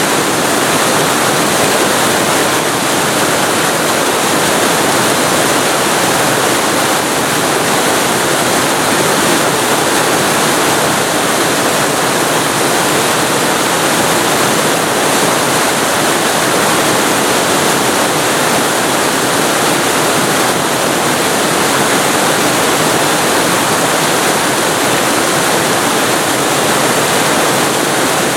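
Waterfall recorded very close to the falling water: a loud, steady, unbroken rush of water.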